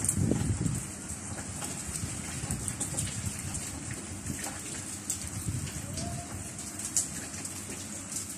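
Steady rainfall, a constant hiss sprinkled with the ticks of individual drops hitting hard surfaces. A low rumble sounds in the first second.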